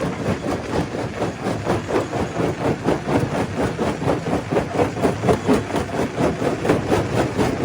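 Stone crusher running under load: a steady machine drone under a dense, rapid clatter of rock being knocked and crushed.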